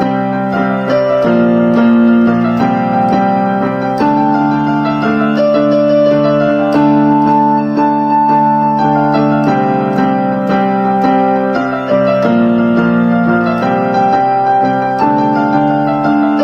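Background music: slow piano or electric-piano chords, held and changing every second or two.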